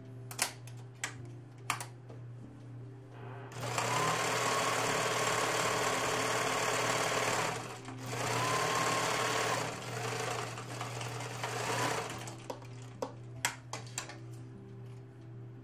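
Domestic sewing machine stitching a seam in two runs of about four seconds each, with a brief pause between; the motor's whine rises as each run starts. Scattered sharp clicks come before and after the stitching.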